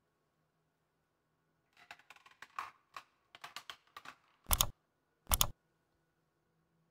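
A run of light clicks and taps, then two louder, sharper clicks about a second apart.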